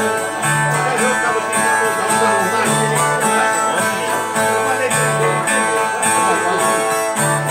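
Two violas, the Brazilian ten-string folk guitars of cantoria, playing the instrumental interlude between sung stanzas: a repeating strummed and plucked figure with a low note returning about every two seconds.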